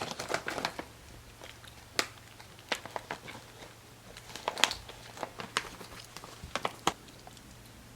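Snack pouch crinkling and crackling as it is handled and tugged at in an attempt to open it, in short irregular bursts.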